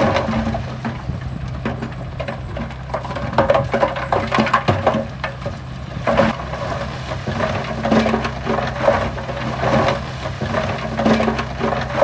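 Diesel engine of earthmoving machinery running steadily under a continuous irregular crunching and clatter of rock and gravel being moved.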